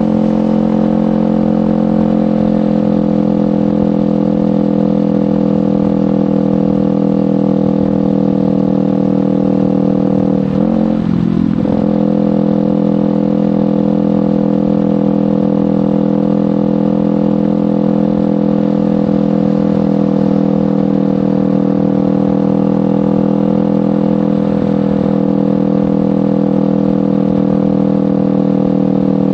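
Kawasaki Ninja 500's parallel-twin engine through a LeoVince GP Corsa Evo exhaust, running steadily under way at a constant engine speed, with a brief dip and recovery in the engine note about a third of the way through.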